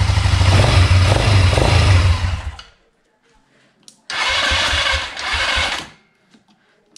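A GY6 200 cc single-cylinder four-stroke ATV engine, still cold, idles without any valve tick after a valve-lash adjustment, then dies suddenly about two and a half seconds in. About a second and a half later the electric starter cranks it for nearly two seconds with a rapid pulsing, and it does not catch.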